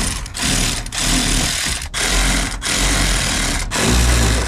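Cordless power tool run in short bursts, the trigger squeezed and released about five times, backing out the small bolts that hold the car's undertray.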